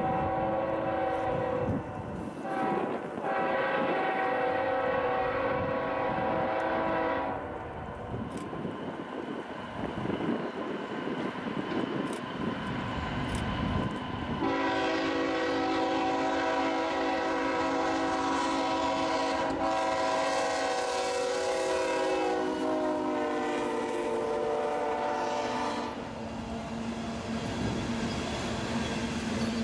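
Freight locomotive air horn sounding two long blasts, then after a pause one long blast of about twelve seconds that drops in pitch as the locomotive passes. The train's coal hopper cars then roll by.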